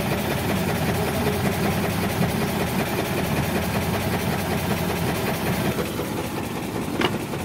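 Boat engine idling steadily, a constant low hum. A single brief click sounds near the end.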